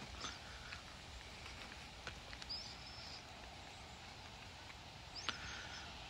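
Faint outdoor ambience with a few short, high bird chirps and a sharp click about five seconds in.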